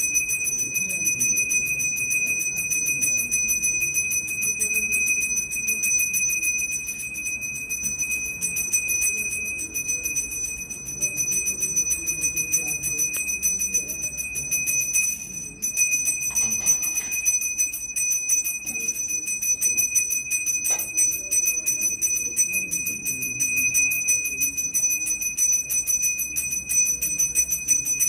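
Pooja hand bell rung rapidly and without let-up during arati, giving a steady high ringing. It breaks off for a moment about halfway through.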